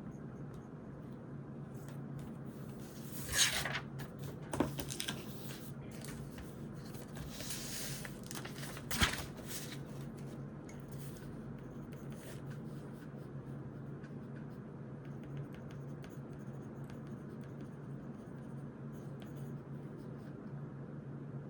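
Pen scratching on notebook paper as someone writes, under a steady low hum, with a few louder paper rustles and a sharp click about nine seconds in.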